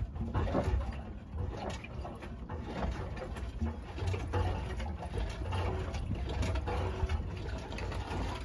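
Seized 289 Windsor small-block Ford V8 being rocked back and forth to try to break it loose: an uneven low rumble with scattered knocks, and the engine does not come free.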